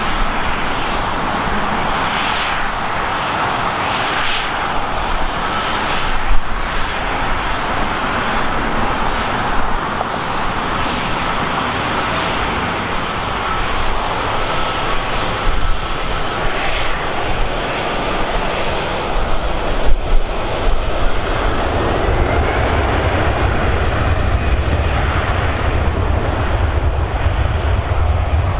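Jet airliner engines at close range, a continuous loud engine noise with a faint steady whine; a deep low rumble builds in the last third.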